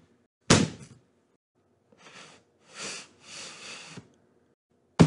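Metal kitchen tongs knocking against and scraping along the taped top of a cardboard box, being used in place of a knife to pry it open. A sharp knock about half a second in, a few seconds of scraping, then another knock at the end.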